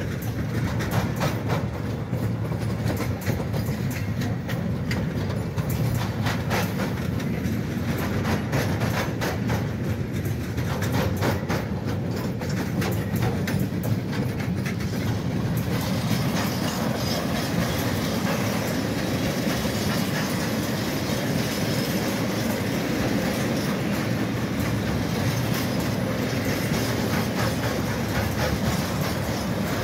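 A long freight train's wagons rolling past close by: wheels clicking over rail joints in a rapid clatter over a low rumble. About halfway through, the separate clicks blend into a denser, even rushing noise.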